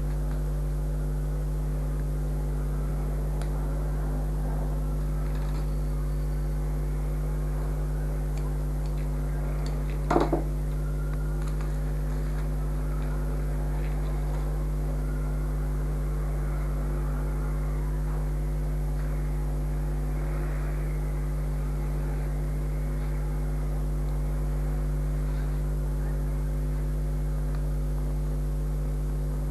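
Steady electrical hum on the recording's sound track, unchanging throughout, with one brief knock about ten seconds in.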